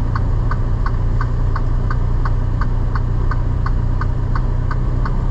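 Inside a semi-truck's cab on the move: the diesel engine's steady low drone with the turn-signal flasher clicking evenly, about three clicks a second.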